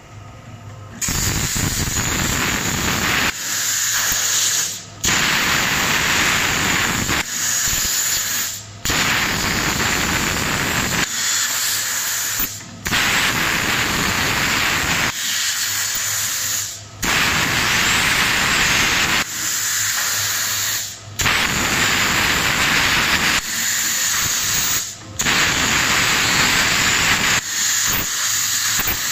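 CNC plasma cutting torch cutting round holes in steel plate: a loud, steady hiss of the plasma arc that cuts out briefly about every four seconds as the torch finishes one hole and moves to the next, then fires again, about seven times.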